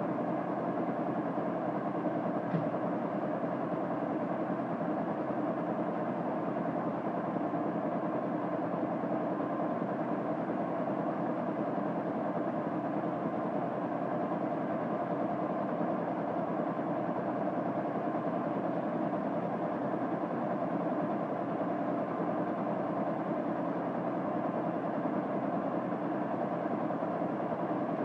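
Mechanical vacuum pumps of an aluminium vacuum metallizing plant, a piston backing pump and Roots blower, running steadily while the chamber is held under high vacuum for filament evaporation.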